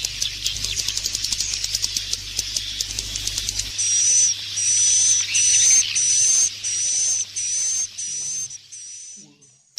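Swiftlet lure call track of roosting ('inap') calls: a fast, dense clicking twitter, then from about four seconds in a run of short repeated chirps, about two a second, each with a thin high whistling tone. The calls fade and stop shortly before the end.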